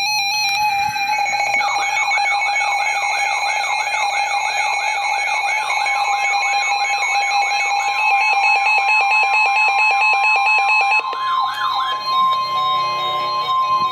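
Emergency Alert System alert tones: a steady multi-tone alarm joined by a siren-like warble that rises and falls about three times a second for roughly ten seconds. Partway through, a single steady tone joins in and carries on after the warble stops near the end.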